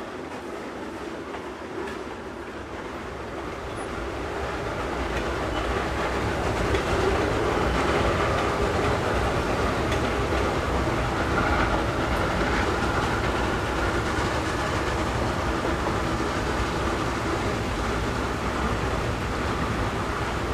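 Steam excursion train rolling along the rails, a steady rumble that grows louder about four seconds in and then holds.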